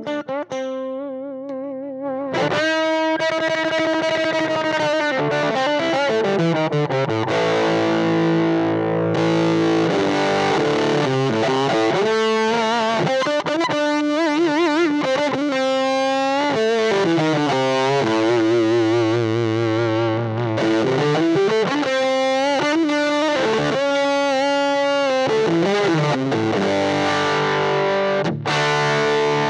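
Electric guitar played through a Fractal FM9 modeling a 5F1 Tweed amp with its gain all the way up, into the matching 1x8 DynaCab: a distorted tone the player calls rude and gnarly. A Bender Fuzz drive block is switched on partway through.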